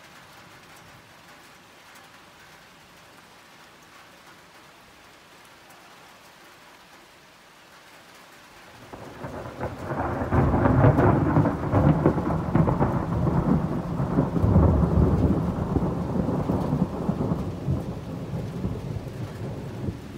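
Thunderstorm: soft, steady rain, then a long roll of thunder that swells about nine seconds in, rumbles loudest for several seconds and slowly fades.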